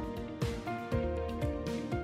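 Instrumental background music with a steady beat of about two strokes a second under sustained pitched notes.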